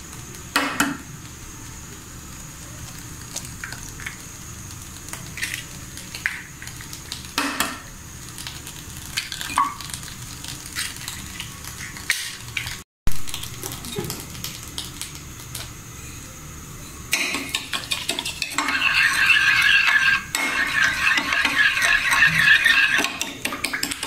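Two eggs cracked on the rim of a ceramic bowl, heard as two sharp knocks among a few lighter taps. Then, from about two-thirds of the way through, a metal spoon beats the eggs in the bowl with fast, steady clinking of spoon on china.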